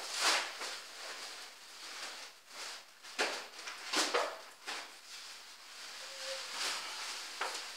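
Intermittent rustling and handling noises in short, irregular bursts while someone searches for a bag, with a brief faint squeak about six seconds in.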